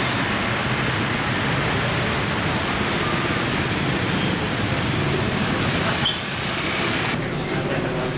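Steady noise of busy street traffic with motorbikes, which thins abruptly near the end.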